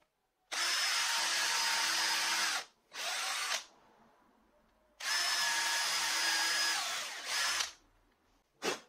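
Electric drill boring two holes into a wooden board with a twist bit: two steady runs of about two and a half seconds each with a high motor whine, each followed by a shorter burst. A brief sharp sound near the end.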